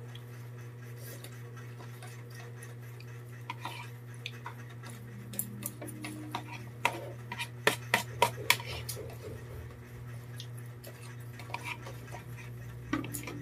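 Metal spoons scraping and clinking against plastic plates as people eat, with several sharper clinks about seven to nine seconds in, over a steady low hum.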